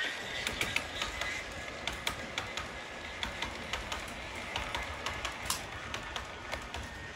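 Model steam locomotive and passenger coaches running along sectional track: light irregular clicking of the wheels over the rail joints, several clicks a second over a faint steady hiss, growing slightly fainter as the train draws away.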